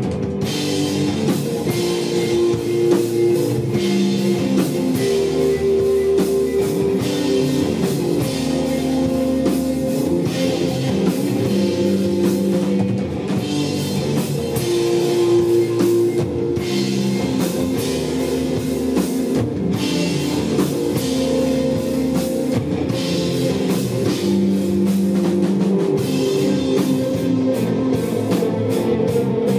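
Live instrumental desert rock: electric guitar over bass and a drum kit, with long held guitar notes and steady cymbal and drum hits.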